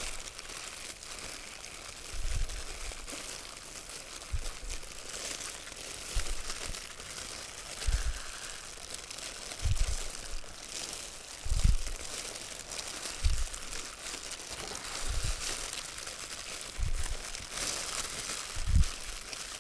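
Crinkling and rustling of disposable plastic gloves and banana leaf as hands fold the leaf around sticky rice and banana, with dull low thuds every second or two as the parcel is pressed on the table.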